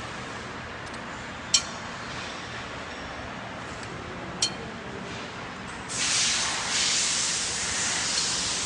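Steel wheel rim clinking twice against the fixture of an automatic rim welding machine as it is loaded. A loud, steady hiss from the machine then sets in about two-thirds of the way through.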